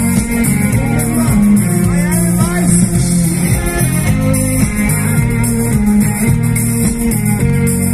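Live pop-rock band playing on stage, with electric guitars, keyboard and drums, loud and continuous.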